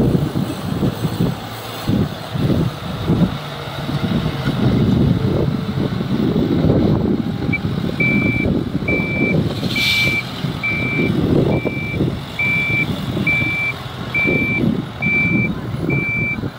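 Wheel loader's diesel engine working hard as it tips a bucket of gravel into a tipper truck. About eight seconds in, a reversing alarm starts beeping a little over once a second, and there is a short hiss around ten seconds in.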